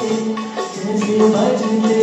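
A man singing a melody into a handheld microphone, amplified through a portable speaker.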